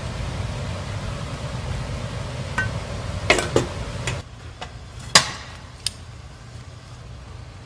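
Tableware clinking: about five sharp clinks and knocks of utensils against dishes, the loudest a little past the middle, over a low background hum that drops suddenly about four seconds in.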